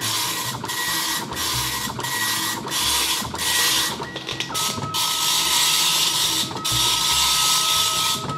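Panasonic KX-P2123 24-pin dot-matrix printer printing, its print head buzzing across the page line by line with the cover off. In the first half the passes are short, with brief pauses between lines. From about halfway the passes run longer, with a steady whine. The head gap is set back from the paper, so the print comes out faint.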